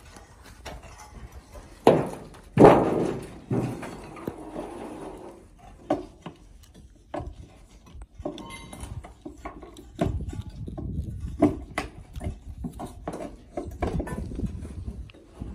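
Bricks and rubble being shifted by hand: irregular knocks, clinks and scrapes of brick on brick. The loudest is a clattering slide of rubble about two and a half seconds in.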